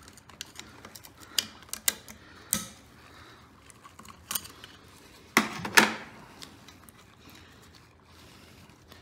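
Metal clicks and clinks as the valve springs and their retainer clips are worked out of a Clinton C-700 small engine block with hand tools, with a short clatter of louder knocks a little past halfway.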